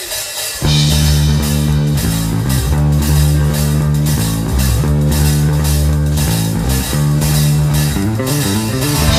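Live rock band starts with a sudden loud entry about half a second in. Electric guitars, bass guitar and drum kit play an instrumental intro with a steady beat, without vocals.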